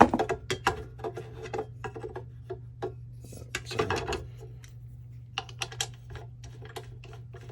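Hard parts of a Work Sharp WS3000 sharpener clicking, clinking and knocking as a slotted wheel is handled and fitted, over a steady low hum.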